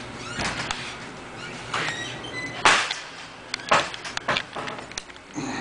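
Scattered sharp knocks and clicks of someone moving about and handling things in a garage, the loudest a little under three seconds in.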